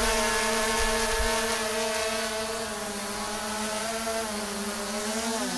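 Small camera drone's electric motors and propellers, a steady buzzing whine that dips briefly in pitch near the end.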